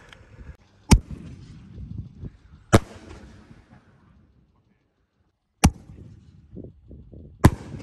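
Four sharp bangs from 6-inch canister firework shells, mortar lifts and aerial breaks, each followed by a rolling echo. The first two come about two seconds apart and the last two about two seconds apart, with a silent gap between the pairs.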